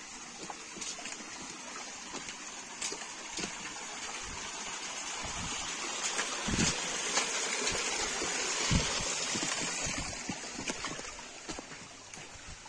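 Small forest creek trickling and splashing over rocks and a little cascade, swelling louder in the middle and fading again toward the end. A few low thumps come through near the louder part.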